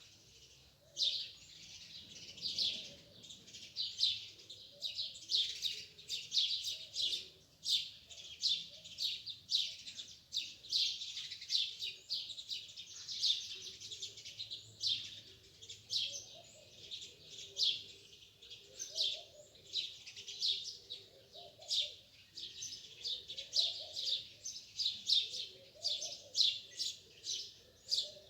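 Many small birds chirping together in a dense, continuous chorus of short, quick, high chirps.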